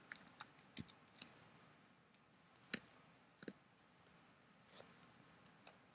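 A few faint, scattered computer keyboard key clicks while code is being typed, irregularly spaced over near silence.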